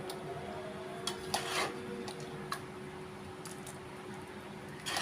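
A spoon scraping and tapping against a metal cooking pot, a few short scrapes and clicks, with one longer scrape about one and a half seconds in, over a faint steady hum.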